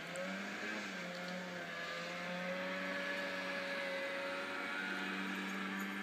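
Snowmobile engine running at a steady pitch after a short rise as it starts.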